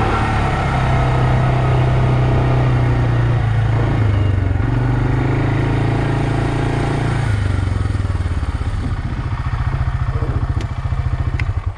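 Suzuki KingQuad 400 ASI ATV's single-cylinder engine running under way at a steady pitch. About seven seconds in its note drops and turns to a slow, uneven chug as the quad eases off.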